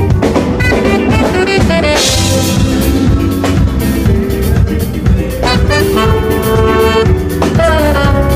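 Live band playing: a drum kit keeps the beat under a melody line that slides up into long held notes.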